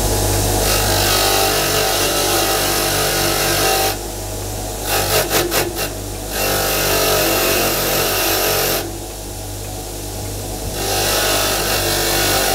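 Hilka 6-inch bench grinder's 370 W single-phase motor humming steadily while its wire wheel scrubs a small brass screw head held in a hand vise, a harsh hiss in three long spells as the head is pressed to the wheel. A short clatter comes about five seconds in, between the first two spells.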